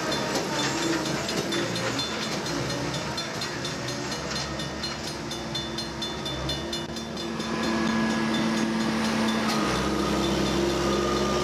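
Railroad track-maintenance machines running on the rails, a steady diesel engine drone with rapid regular clicking for the first several seconds. About two-thirds of the way through the drone grows louder as another machine in the convoy comes up to the crossing.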